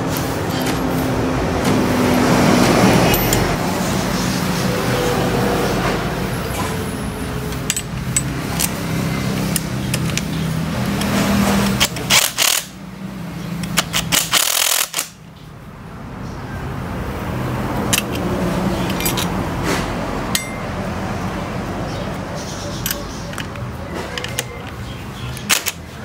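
Steady mechanical running, then a cordless impact wrench hammering in short bursts about halfway through as it tightens the bolts of a steel pillow-block bearing.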